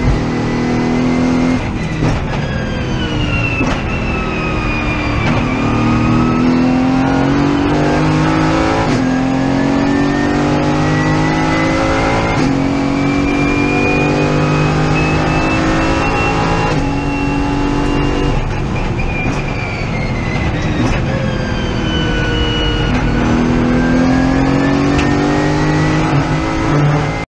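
Mercedes-AMG GT4's twin-turbo V8 heard from inside the cockpit, running hard on track: its pitch falls, climbs for several seconds under acceleration, then falls again under braking, with a few sharp clicks from gear changes. The sound cuts off suddenly at the end.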